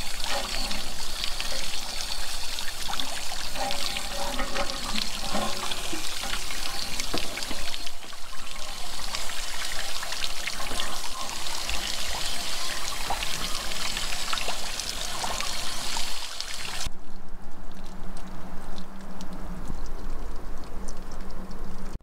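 Water pouring and splashing out of an RV water heater's anode port as the tank is flushed with a garden-hose rinser wand, washing out scale. The steady rush turns duller about three-quarters of the way through.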